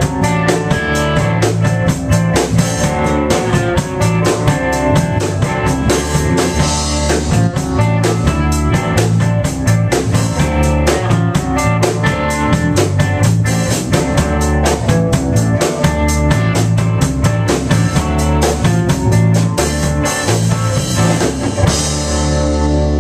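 Blues band playing an instrumental passage: a drum kit beats out a busy rhythm over bass and guitar. Near the end the drums stop and a held chord rings on.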